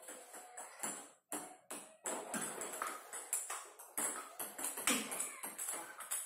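Table tennis rally: the celluloid ball clicks sharply off the rubber paddles and bounces on the tabletop in quick, irregular ticks.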